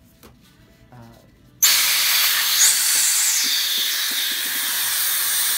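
Compressed air hissing steadily out of a Hibar 4F2C pneumatic filling machine. It starts suddenly about one and a half seconds in. The air is escaping because the air supply is still connected while the machine's top part is being taken off.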